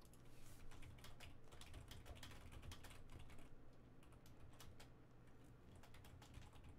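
Faint, irregular clicking of keys on a computer keyboard being typed on.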